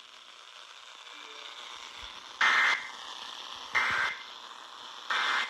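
Weather radio sending the three short EAS end-of-message data bursts (the SAME 'NNNN' code) that close the tornado warning broadcast. Three brief buzzy digital bursts come about a second and a half apart, over steady radio hiss.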